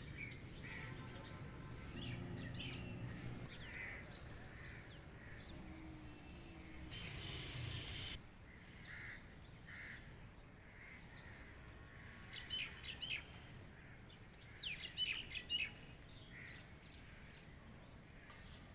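Small birds chirping and calling, many short notes with quick sharp rising and falling glides, busiest in the second half. A low rumble sits underneath during the first several seconds.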